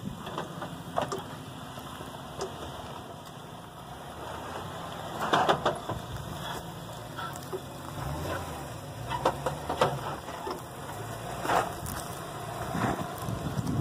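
Nissan Armada's 5.6-litre V8 running at low speed as the SUV crawls over a dirt off-road course, with intermittent crunches of its tyres on dirt and gravel.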